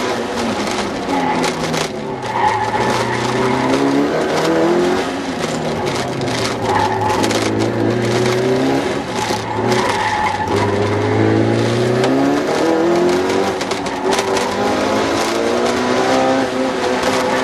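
Car engine heard from inside the cabin, revving up and dropping back over and over as the car accelerates and brakes between cones on an autocross run, with brief tire squeal in the turns.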